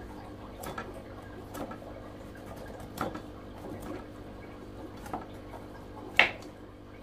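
Faint, irregular small clicks and scrapes of a kitchen knife cutting the peel off a mango, with one sharper click about six seconds in.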